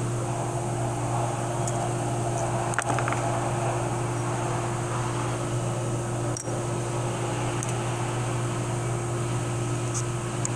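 Steady mechanical hum, like a fan or motor running, with two brief clicks, the louder one about six seconds in.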